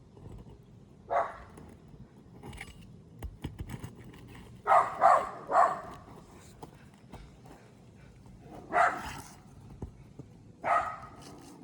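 A dog barking: one bark about a second in, three quick barks near the middle, then two more single barks. Faint clicks and scrapes sound between the barks.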